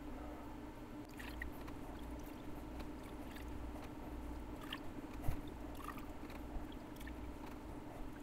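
Faint water dripping and trickling as soaked rockwool cubes are squeezed out over a jar, with light taps as the cubes are set into the cells of a plastic seedling tray; one sharper tap about five seconds in. A steady low hum runs underneath.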